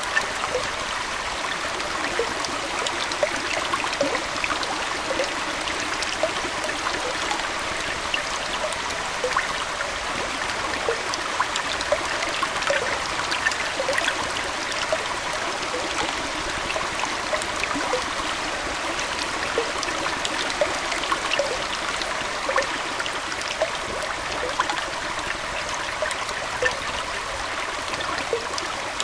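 Aquarium water flowing and trickling in a steady stream, with many small splashes and drips through it.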